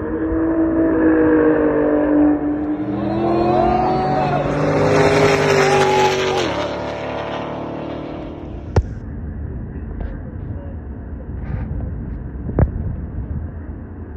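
BMW F80 M3 (twin-turbo straight-six) and Nissan GT-R (twin-turbo V6) racing side by side at full throttle in a roll race. The engine notes climb with brief dips at the gearshifts, pass by loudly, and fade away about seven seconds in. Lower background noise follows, with two sharp cracks.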